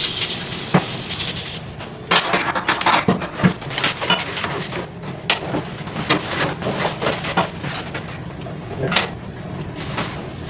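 Irregular clinks, clicks and rustles as the metal parts and cardboard packaging of a new sensor faucet are handled and unpacked, over a steady low hum.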